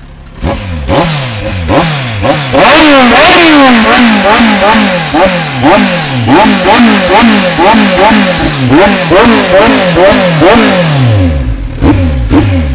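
Kawasaki Z1000 inline-four engine revved loudly in quick repeated throttle blips, about two a second, each rising and falling in pitch. It breathes through an aftermarket sport muffler tip with the original catalytic converter kept. Near the end it settles briefly before revving again.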